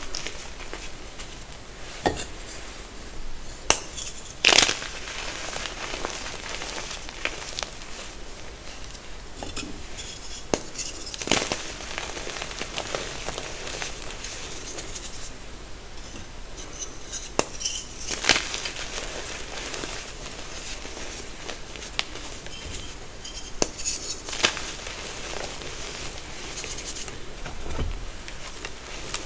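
Reformed gym chalk crushed and squeezed in bare hands: dry crumbling and crackling of powder and lumps, with louder sharp crunches every six or seven seconds.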